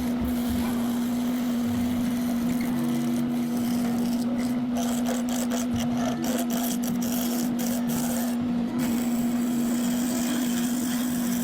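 Wood lathe running with a steady hum while a tool rubs and rasps against the spinning wood.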